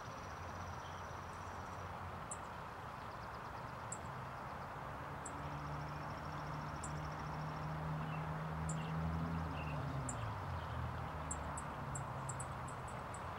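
Outdoor ambience beside a pond: short high chirps about once a second over a steady hiss, quickening into a rapid run near the end. A low engine hum swells through the middle, drops in pitch and fades, like a vehicle passing at a distance.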